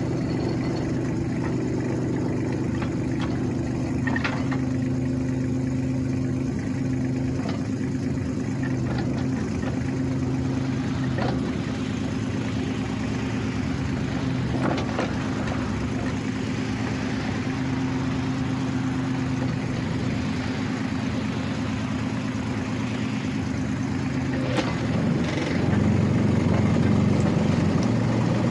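Kubota U-30-5 compact excavator's diesel engine running steadily, with a few sharp knocks now and then. The engine gets louder over the last few seconds.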